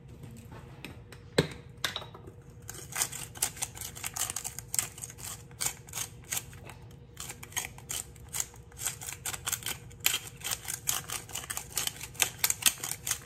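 A single knock about a second in, then quick, irregular clicking and rattling from a handheld salt shaker as salt is shaken out.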